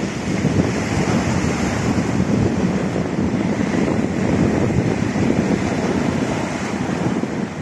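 Choppy sea surf, waves breaking and washing ashore, mixed with strong wind buffeting the microphone in a low, uneven rumble.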